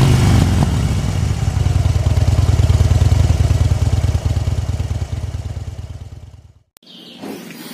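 Motorcycle engine running just after starting, with a quick rev at the start, then settling into a steady idle that fades out about six and a half seconds in.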